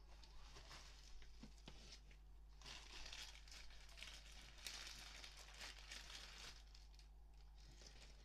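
Faint, intermittent crinkling and rustling of parcel packaging being handled and opened.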